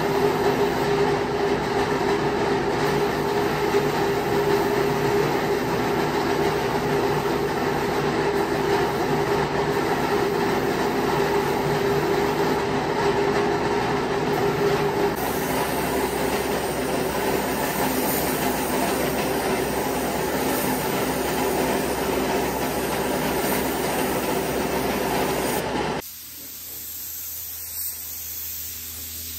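A steady running machine or power tool, a loud even noise with a constant hum in it, that changes slightly about halfway through and then stops abruptly near the end, leaving a quieter hiss.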